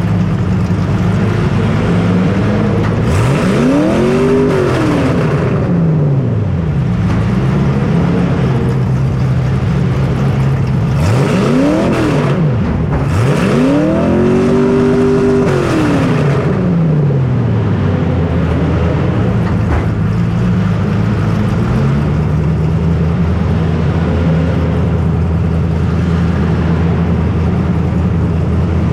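Racing snowmobile engine running steadily, revved up and let back down twice: once a few seconds in and again between about 11 and 16 seconds.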